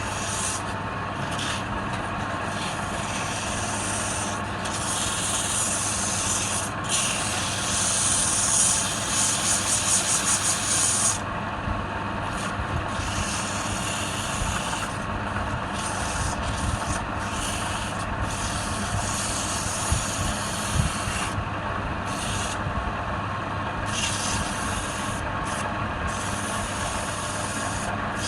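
Wood lathe running steadily while something rubs with a rasping sound against the spinning wood. About a third of the way in, the rubbing grows louder for a few seconds and pulses about four times a second.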